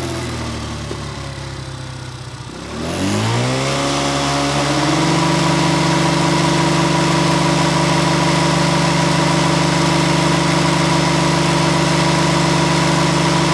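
SYM Jet4 50cc scooter's single-cylinder four-stroke engine running. Its revs sink over the first couple of seconds, then climb about three seconds in and hold steady at a higher speed. The owner says the engine has had lubrication problems since a crash.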